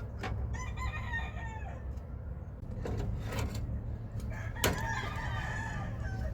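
A rooster crowing twice, each crow long and falling in pitch at the end, over a steady low hum, with a few sharp knocks, the loudest just before the second crow.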